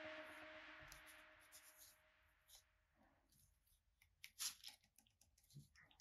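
Background music fading out over the first two seconds, then near silence with faint clicks and rubbing as fingers roll rubber O-rings off a stainless-steel sensor body. One sharper click comes about four and a half seconds in.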